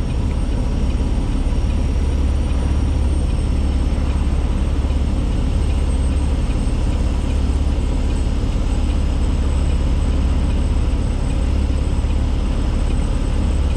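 A semi truck's diesel engine running with a steady low drone, heard from inside the cab, with a faint steady high-pitched whine above it.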